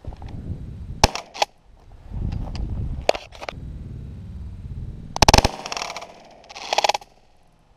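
A string of close shotgun shots while dove hunting: sharp cracks about a second in and around three seconds, then two louder, longer blasts in the second half, about a second and a half apart.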